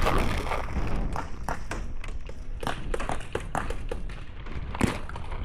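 Scattered sharp pops of paintball markers firing at irregular intervals, over a steady low rumble of wind buffeting the microphone.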